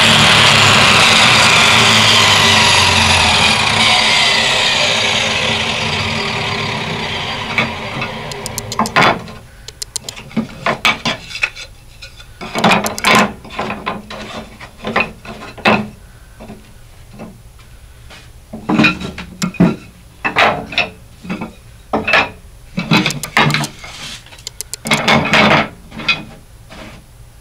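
Ryobi table saw blade coasting down after being switched off: its whine falls steadily in pitch and fades out over about eight seconds. Then short wooden clacks and knocks as cut poplar and alder strips are laid down, tapped and slid against each other on the saw table.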